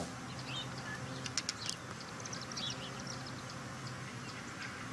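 Birds chirping in short high calls scattered through quiet outdoor ambience, over a faint steady hum.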